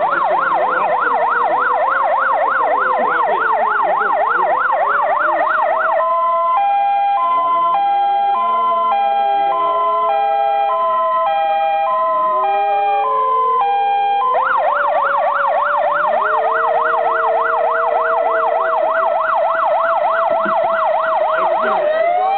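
Electronic siren in a fast yelp. About six seconds in it switches to a two-tone hi-lo alternating about once a second, then goes back to the fast yelp about fourteen seconds in. A steadier second siren tone runs underneath throughout, and a rising wail begins near the end.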